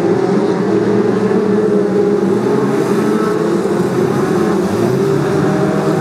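A pack of Brisca F2 stock car engines racing together: many engines running at once, their tones overlapping in a loud, steady din.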